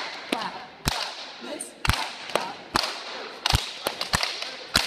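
A group of children clapping their hands and slapping their laps together in a rhythm, about two sharp strikes a second, echoing in a gym.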